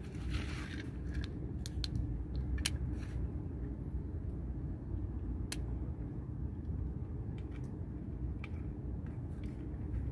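Wind rumbling steadily on the microphone, with scattered small clicks and crackles from fingers handling a piece of bait.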